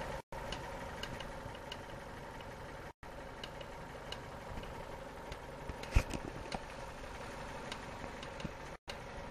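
Fiat Stilo running at idle: a steady engine hum with irregular light clicking rattles over it and one louder knock about six seconds in.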